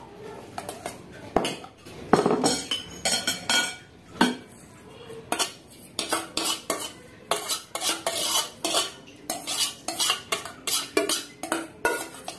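Metal spoon scraping and clinking against a stainless steel saucepan as mixed instant noodles are stirred and then scraped out of the pan onto a plate. It is an irregular run of scrapes and taps, sparse at first and coming about twice a second from about halfway through.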